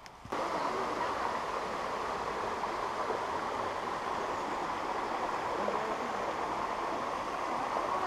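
Shallow river running over rocks and small cascades: a steady rush of water that starts suddenly just after the beginning and holds even.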